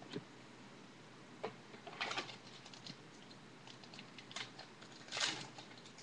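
Trading cards and their packaging being handled: scattered short rustles, scrapes and clicks, a cluster about two seconds in and the loudest rustle near the end.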